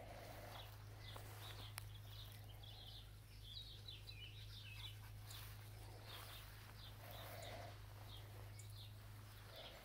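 Faint outdoor ambience: scattered bird chirps over a steady low hum.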